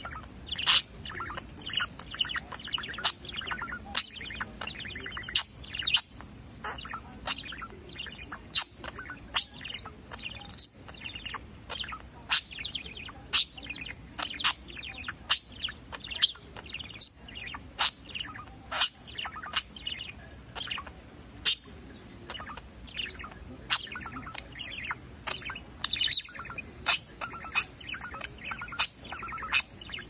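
Male budgerigar warbling: a continuous chattering song studded with short, sharp high chirps and clicks, about two a second.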